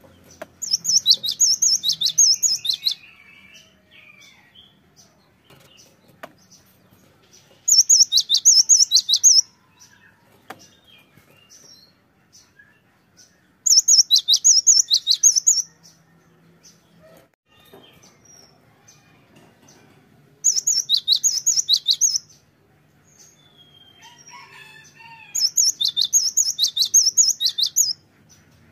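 Cinereous tit (gelatik batu) singing: five bursts of about two seconds each, every burst a fast run of repeated high whistled notes, with pauses of a few seconds between them.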